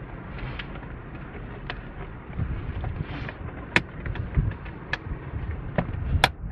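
Plastic cabin air filter access cover of a Chevy Impala being pushed into the dash opening: low knocks and scraping of plastic on plastic, then four sharp clicks from about four seconds in as its clips snap into place.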